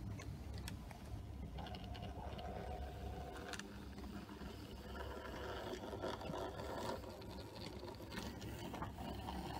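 Model steam locomotive running slowly along the track: a steady motor hum from the mechanism, with occasional clicks.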